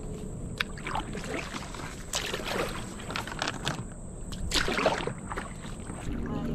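Kayak paddle strokes splashing and dripping in calm creek water, about four strokes a second or so apart, over a low steady rush of water and wind.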